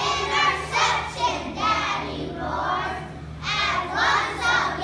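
A group of young children singing together, in phrases with a dip about three seconds in before the next line.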